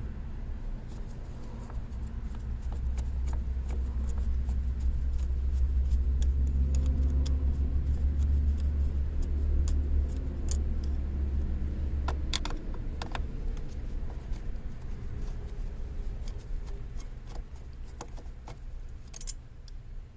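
A motor vehicle's low engine rumble swells over several seconds and drops away about twelve seconds in. A few sharp small metallic clicks follow near the end.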